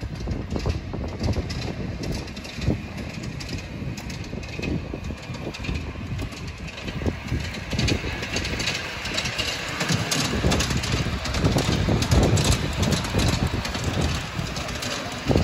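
Miniature live-steam locomotive hauling a passenger riding car on a raised track, a steady clattering run that grows louder as it approaches and passes close by.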